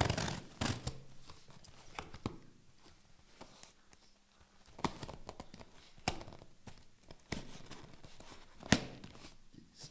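Cardboard box being opened with a knife: scratchy cutting and scraping through the packing tape, rustling cardboard, and several sharp knocks, the loudest near the end.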